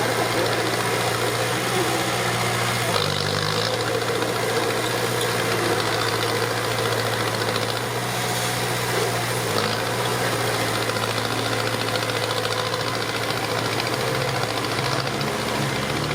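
Heavy construction machinery's diesel engine running steadily with a deep, even drone, its pitch shifting briefly about three seconds in and again near ten seconds.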